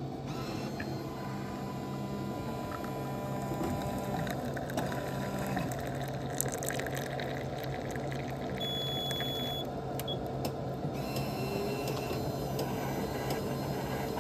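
Self-service coffee dispensing machine running and pouring a coffee drink into a cup, a steady hum with the trickle of liquid filling the cup, and a single beep lasting about a second midway.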